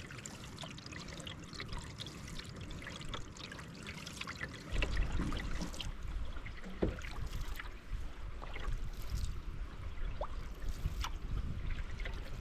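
Water trickling and dripping off canoe paddles, with small splashes. A low rumble comes in about five seconds in.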